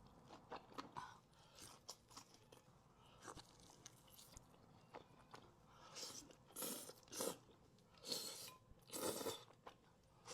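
Close-miked mouth noises of someone eating crispy fried chicken wings: crunching bites and chewing, with scattered small clicks. Several louder crunches come in the second half.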